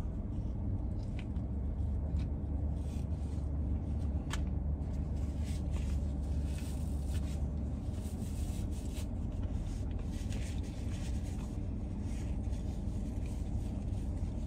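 A man quietly chewing a bite of sandwich and rubbing a paper napkin over his mouth, with a few faint clicks and rustles. Under it runs a steady low hum in the car's cabin, which eases a little about halfway through.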